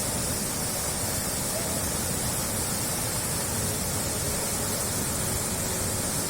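Steady, dense rush of flowing water, like a waterfall or fast stream, with no changes or separate events.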